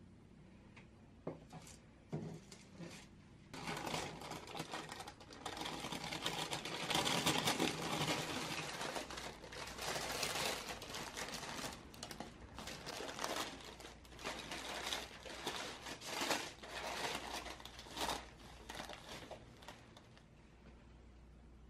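Parchment baking paper rustling and crinkling as it is lifted and pulled to roll a cream-covered sponge sheet into a roll cake, starting after a few light clicks and dying away near the end.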